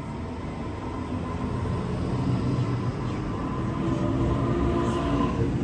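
Sydney Trains Waratah (A set) double-deck electric train pulling into the platform: a rumble of wheels on rail under a steady electric whine, growing louder as the carriages come alongside.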